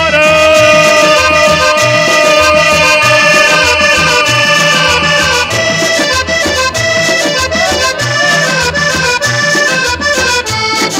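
Accordion cumbia played loud over a sound system. The accordion holds a long chord through the first half, then moves into quicker melody notes, over a steady bass and percussion beat.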